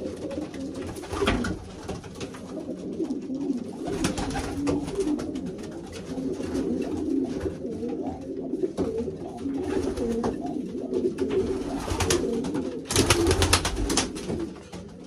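Racing pigeons cooing over one another without a break in a small loft. There is a short burst of clattering near the end.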